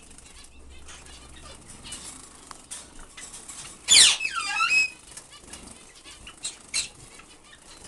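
Small cage birds fluttering their wings as they bathe, with many quick flicks and splashes, and a loud sweeping chirp from a bird about four seconds in.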